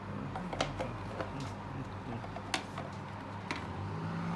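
Scattered sharp plastic clicks and knocks, about half a dozen, as a portable air conditioner's exhaust hose and its end fittings are handled and fitted together, over a steady low hum.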